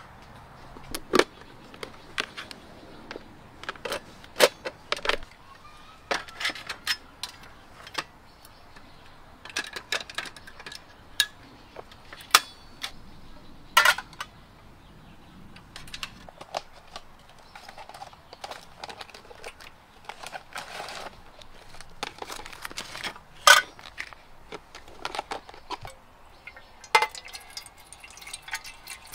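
Metal camp cookware handled on a portable butane stove: an irregular run of sharp clinks and knocks as pots, pan and utensils are set down and moved. Near the end, water is poured into a metal pot.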